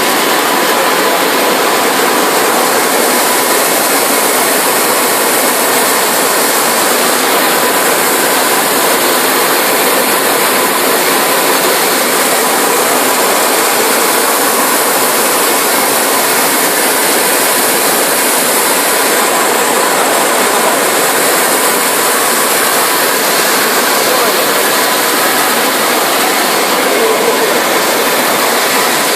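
Brush-roller fruit and vegetable washing machine running with its high-pressure spray on: a loud, steady rush of spraying water over the machine's running noise, with a faint steady whine.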